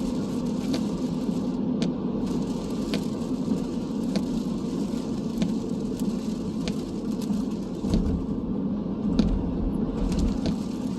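Steady road and engine noise inside a car's cabin while driving on a highway in rain, with scattered faint ticks and a low rumble that swells near the end.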